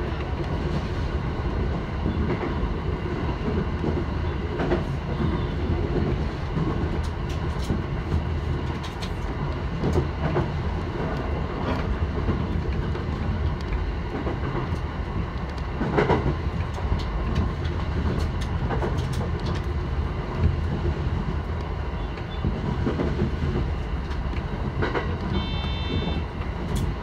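Running sound of a JR East E129 series electric train heard inside the car: a steady rumble of wheels and running gear on the rails, with scattered clicks from the track.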